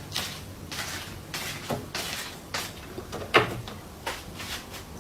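A series of irregular clicks and knocks with light rustling between them, the loudest knock about three and a half seconds in.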